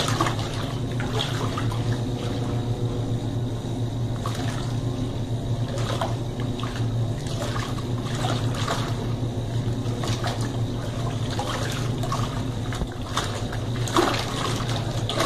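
Colormaq Pioneer tanquinho washing machine agitating a load: a steady low motor hum under continuous sloshing and churning of soapy water as its impeller swirls the clothes, with a louder slosh near the end.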